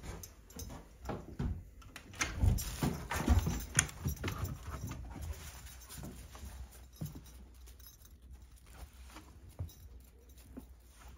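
German Shepherd dog moving about close by and then running off: irregular knocks, scuffles and paw steps. They are densest and loudest a couple of seconds in, then thin out to lighter, scattered taps.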